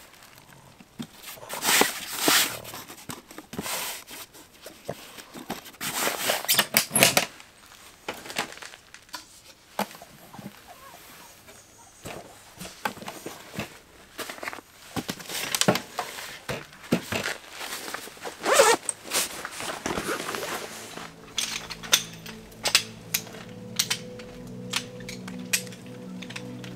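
Rustling and crinkling with scattered clicks and knocks, as of things being handled by hand, loudest in several bursts of a second or so. About three-quarters of the way through, background music with steady held notes comes in under light ticking.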